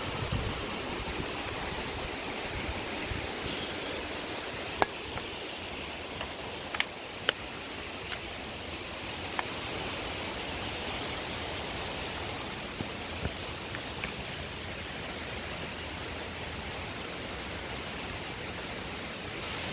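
Waterfall rushing steadily, with a few sharp clicks near the middle.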